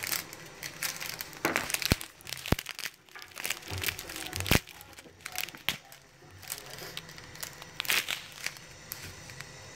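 Black plastic spoon stirring mung bean soup in a stainless steel pot and knocking against the pot, giving three or four sharp clacks, over scattered crinkly rustling.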